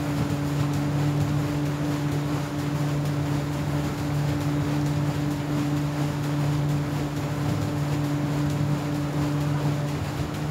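River ferry's engine running with a steady low hum over an even rushing noise of wind and water.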